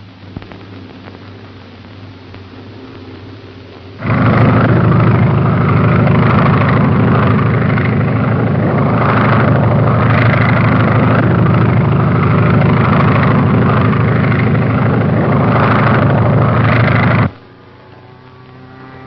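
Propeller aircraft engine in flight: a steady drone for the first few seconds, then a much louder engine and rushing-air sound from about four seconds in that swells now and then and cuts off abruptly near the end.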